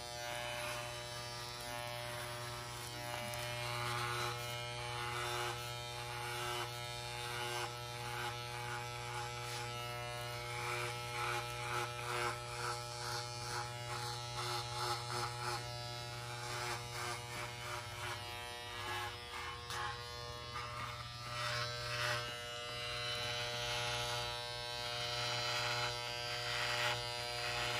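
Wahl electric shaver buzzing steadily as it shaves a man's head bald, with an irregular rasping over the hum as the blades pass through the hair.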